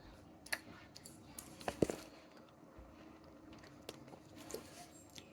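Faint crunches and clicks of teeth biting into a wax Nik-L-Nip bottle candy: a few scattered strokes, the loudest cluster near two seconds in.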